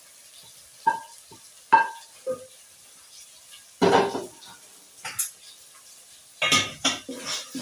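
Metal utensil and cooking pot clinking and clattering as carrots go into a beef stew: three short ringing clinks, a louder clatter about four seconds in, then a run of knocks and scraping near the end.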